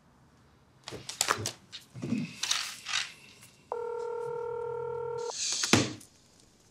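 Landline telephone call being placed: a few handling clicks and rustles, then a steady low ringback beep lasting about a second and a half, the line ringing at the other end.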